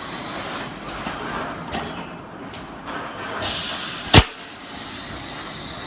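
Plastic bottle making machine running with a steady mechanical noise, a few short bursts of noise, and one sharp clack about four seconds in.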